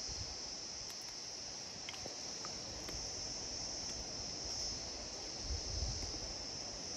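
Insects chirring in a steady, unbroken high-pitched chorus.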